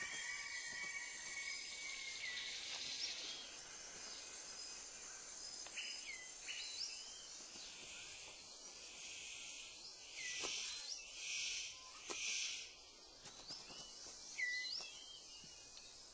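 Rainforest ambience: a steady high insect drone with short chirping bird calls scattered throughout. A little after halfway, three brief hissing rushes of noise come in quick succession.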